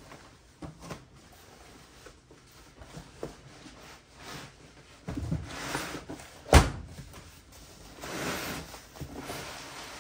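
A cardboard shipping box being opened and unpacked on a workbench: cardboard flaps and tape scraping and paper packing rustling, with a dull thud about five seconds in and a sharp knock, the loudest sound, about six and a half seconds in.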